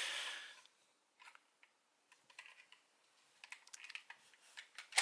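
Scattered light plastic clicks and taps of a toy Progrise Key being handled and flipped in the hand, with a short hiss at the start and a sharper click near the end.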